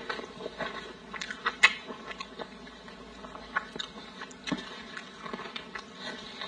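Close-miked chewing of a soft chunk of glazed meat: wet mouth clicks and smacks at an irregular pace, the sharpest about one and a half seconds in. Lettuce leaves crinkle as they are folded around the meat.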